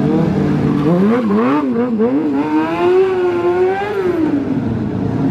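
Motorcycle engine revving: a few quick throttle blips about a second in, then the revs climb and hold high for over a second before dropping back near the end.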